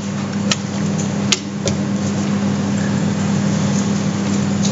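Steady low electrical-sounding hum with a hiss over it, the background noise of the room and recording, with a few faint clicks in the first two seconds.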